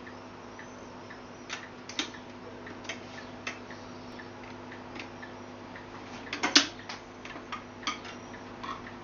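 Telefunken W215 HiFi record changer running through its change cycle: a steady motor hum under irregular mechanical clicks and clacks, the loudest clatter about six and a half seconds in as a single drops from the spindle onto the platter.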